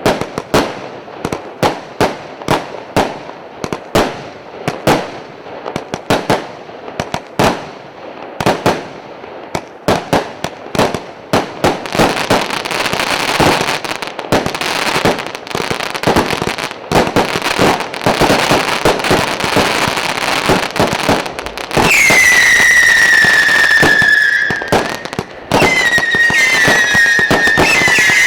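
A firework cake with whistling shots, a 280-shot battery, firing. First comes a run of sharp single shots, about two to three a second. Then there is a dense stretch of continuous crackling. In the last six seconds come loud whistles, the first gliding down in pitch, then several at once.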